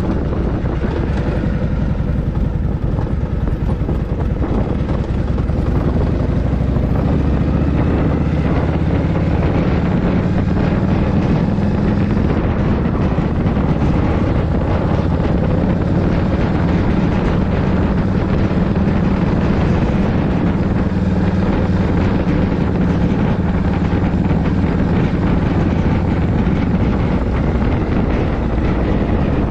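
Harley-Davidson Shovelhead V-twin engine running under way on its first full-speed ride with a freshly rebuilt top end. It climbs in pitch over a few seconds as the bike accelerates, then holds a steady cruising note.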